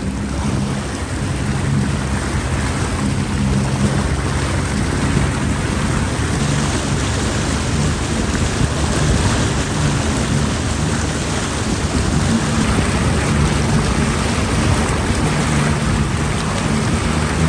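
Motorboat engine running steadily under way, a low hum under the loud, steady rush and hiss of churning wake water and spray.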